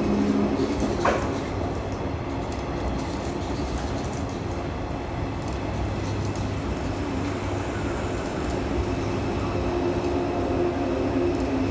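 JR East 185 series electric train pulling out of the station and passing close by, with a steady hum from its traction motors and the rumble of wheels on rail. A single short, sharp sound comes about a second in.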